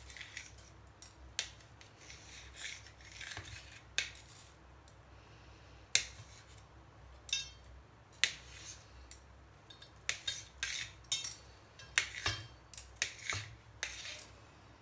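Kitchen knife cutting a block of fresh chhena on a stainless steel plate: the blade clicks and scrapes against the steel in scattered, irregular strokes, coming more often in the last few seconds.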